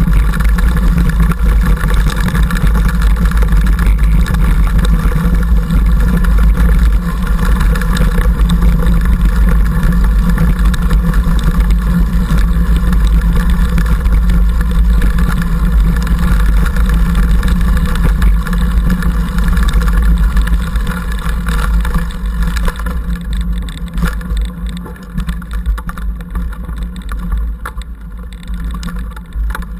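Wind buffeting and riding noise picked up by an action camera mounted on a mountain bike's handlebar, a steady low rumble with scattered knocks and rattles from the trail. It gets quieter and more uneven in the last several seconds as the bike slows on a climb.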